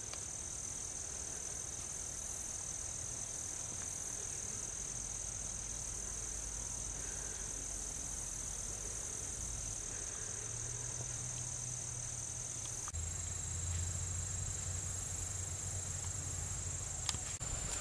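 Steady high-pitched insect chorus, crickets, droning without a break, with a low rumble underneath. The drone shifts slightly in pitch about two-thirds of the way through, and there is a sharp click near the end.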